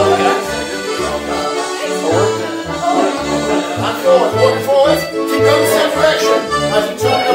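Piano accordion playing a lively Scottish ceilidh dance tune: a held melody over a steady, evenly pulsing bass.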